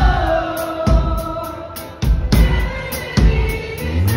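Live band performing: a male lead singer singing into a microphone over electric guitar, bass and drums, with a long held note at the start and a heavy low beat about once a second.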